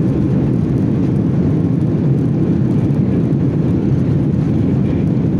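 Cabin noise of a Boeing 737-800 rolling down the runway after landing: a loud, steady low rumble of the engines and the airframe, heard from inside the cabin.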